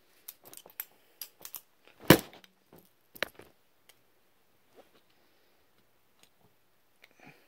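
Plastic fidget spinner handled with light clicks, then struck hard about two seconds in with a sharp knock, the loudest sound, and a second smaller knock about a second later, in a bid to break it.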